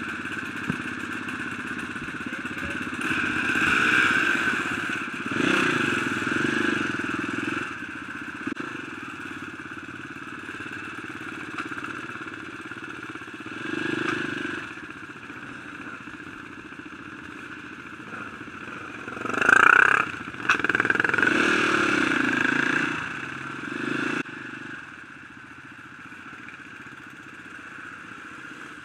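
Trail motorcycle engine running as the bike rides off at low speed, revving up in several swells. The loudest rev, with a rising whine, comes about two-thirds of the way through, and the engine settles to a quieter steady run near the end.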